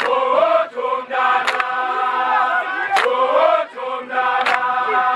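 A group of male students singing a protest song in harmony, with a sharp clap on the beat about every one and a half seconds.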